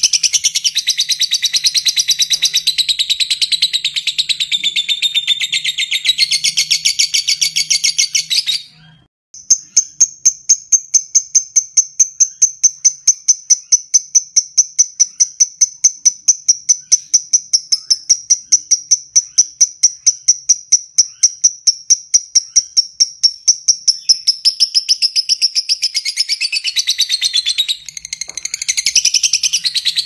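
Fischer's lovebird in its long chattering song (ngekek panjang): a dense, high chatter that breaks off for a moment about nine seconds in, then a long, even run of rapid, repeated high chirps, turning back into varied chatter near the end.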